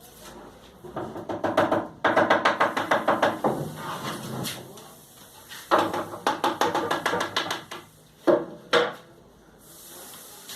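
Two spells of rapid clattering, each about two seconds long, followed by two sharp knocks in quick succession. These are sounds of hand work on wood.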